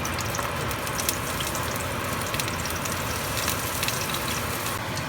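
Food sizzling in a little oil in a pan over low heat: a steady hiss with small scattered crackles.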